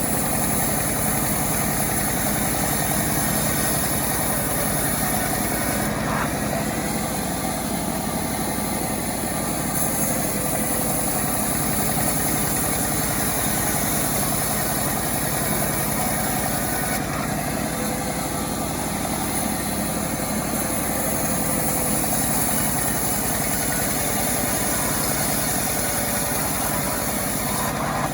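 Self-assembled chainsaw running steadily at an even level, its high whine shifting slightly a few times.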